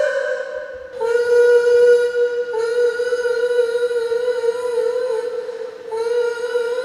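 A singer's voice holding long, steady notes at nearly the same pitch, one after another with short breaths between, in a vocal warm-up. A slight step down in pitch comes about two and a half seconds in, and the longest note wavers a little near its end.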